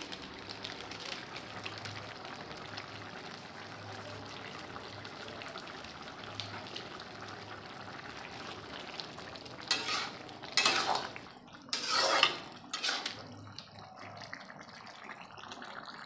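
Cauliflower and potato curry sizzling in a metal kadhai, with a steady fine crackle. About two-thirds of the way through, a steel ladle stirs and scrapes the pan in several loud strokes.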